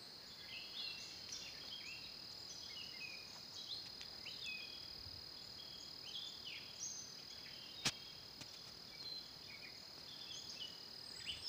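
An outdoor chorus of small birds giving many short, falling chirps over a steady high insect drone. A single sharp click comes about eight seconds in.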